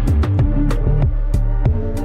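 Background music: electronic track with a heavy bass line and a steady drum beat.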